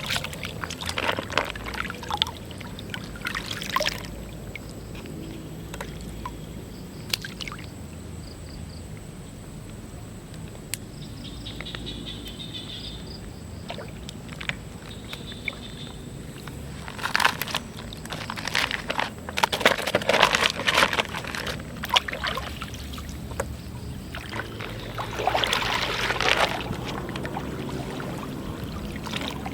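Water splashing and sloshing in several irregular bursts, loudest about two-thirds of the way through, over a steady low rumble.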